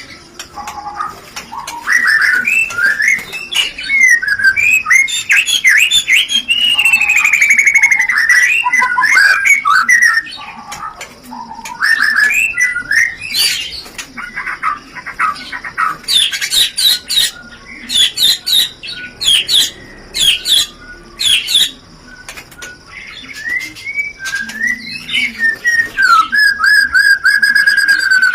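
White-rumped shama (murai batu) in breeding condition singing a long, varied song of loud whistled phrases. It mixes gliding whistles and quick runs of notes with bursts of rapid chattering, the 'rencetan' of a murai ready to mate.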